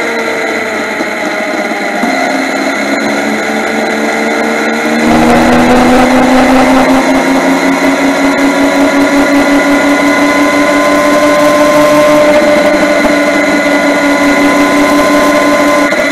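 Yamaha MT-09's three-cylinder engine running under way, its pitch gliding slowly with the throttle. About five seconds in it gets louder and picks up speed, and wind rumble on the microphone grows with it.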